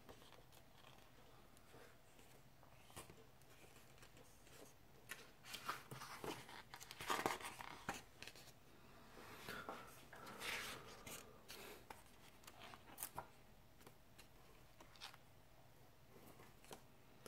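Pages of an oversized hardcover comic book being turned by hand: faint, scattered paper rustles and swishes, the loudest cluster about seven seconds in and another around ten and a half seconds.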